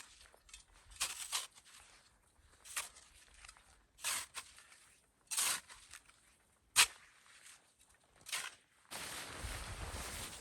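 Slow footsteps crunching through snow, one step about every second and a half. Near the end a steady rushing noise takes over.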